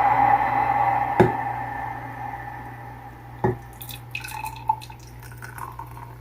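Hot water poured from an electric kettle into a cup, the splashing stream strongest at first and fading away over the first couple of seconds. Two light knocks follow, one about a second in and one about halfway through.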